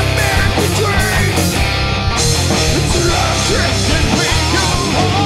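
Live heavy rock band playing: drum kit, bass and electric guitar. The cymbal crashes stop about two seconds in, and a man's singing voice carries the second half.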